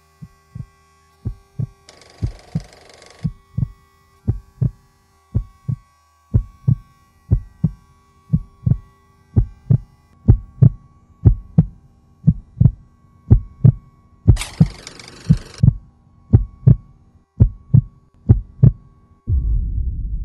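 Heartbeat-like sound effect: deep, muffled thumps, about two to three a second, over a faint held tone. Two short bursts of hiss break in, and a loud low rumble sets in near the end.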